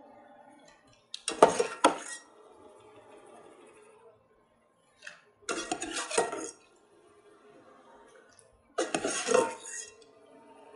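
A perforated metal skimmer clatters and scrapes against the side of a metal pot in three short bursts as battered peanuts are stirred and lifted from the frying oil. Between the bursts there is a faint, steady bubbling of the hot oil.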